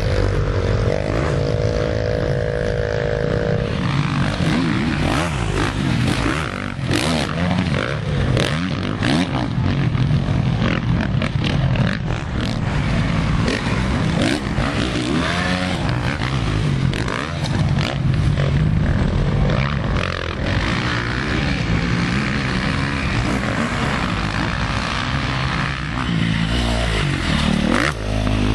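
Off-road motorcycle and quad engines revving on a dirt motocross track. The pitch rises and falls as the riders throttle on and off, with a steady engine note in the first few seconds.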